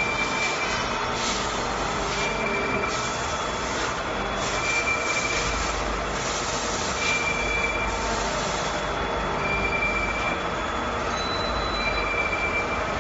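CAK50186 CNC lathe knurling a long shaft: a steady machining noise, with a short high squeal about every two seconds.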